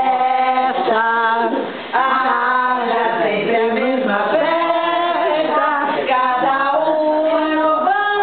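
A group of people, mostly women, singing together in long held notes. The singing dips briefly just before two seconds in.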